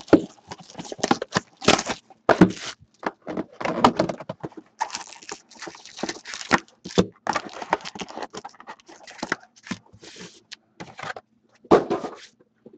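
Cardboard hobby box of Titanium Hockey cards being opened and its foil-wrapped packs pulled out and stacked: irregular crinkling, rustling and light taps of foil and cardboard, with a louder rustle near the end.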